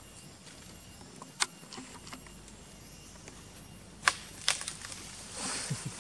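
Scattered sharp snaps and clicks from macaques moving about in a tree, the loudest a little past the middle, followed by a rustle near the end as they scamper along the branch.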